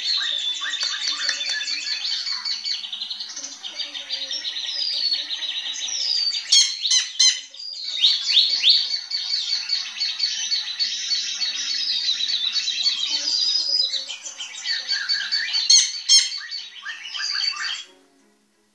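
Caged drongo (srigunting) singing a long, continuous, varied song of rapid trills, whistles and sharp squawking notes, stopping near the end.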